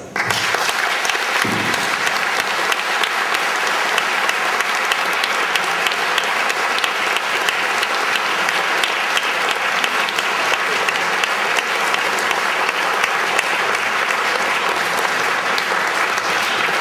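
Audience applauding at the close of a talk: dense, steady clapping of many hands.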